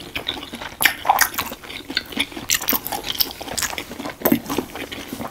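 Two people chewing mouthfuls of battered Korean hot dogs close to the microphone, with many short irregular clicks and smacks.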